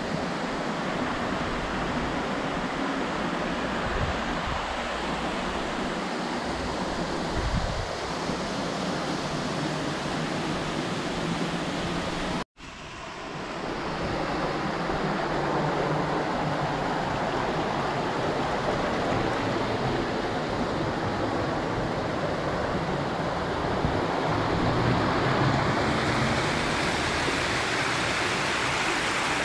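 Steady rush of water from a small waterfall and a shallow stream running over rocks. The sound cuts out for an instant about halfway through, then comes back and carries on.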